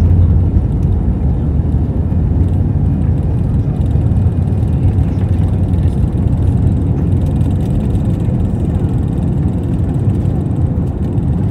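Airbus A320 jet engines at takeoff thrust, with runway rumble, heard inside the cabin during the takeoff roll: a steady, loud, deep noise.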